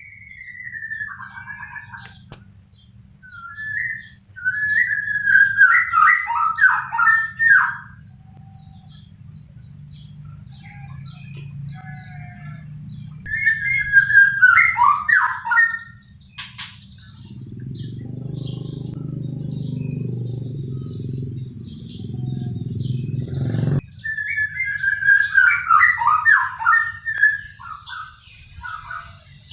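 A white-rumped shama singing in three bouts of rapid, varied whistled phrases, each lasting a few seconds. A steady low hum runs underneath. Past the middle, a louder low rumble builds for several seconds and cuts off suddenly.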